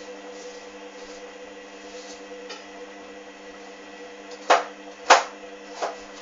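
Hoover Dynamic washing machine running its main wash, the drum motor giving a steady hum. Three sharp knocks come in the second half, about a second apart.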